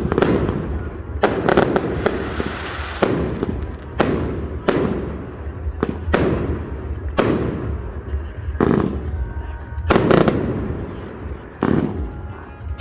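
Aerial fireworks bursting in quick succession, about a dozen loud bangs roughly a second apart, each followed by a rumbling echo that fades.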